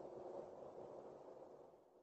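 Near silence: a faint steady background hiss with a low hum, fading near the end.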